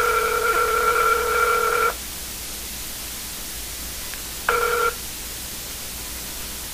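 Telephone ringing tone heard over the phone line as a held call is put through to an agent. A steady two-pitch tone lasts about two seconds, then a short beep about four and a half seconds in, with line hiss between.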